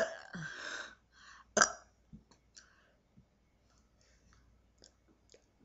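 A woman's burp trailing off, then a single short sharp click about a second and a half in, followed by a few faint mouth clicks.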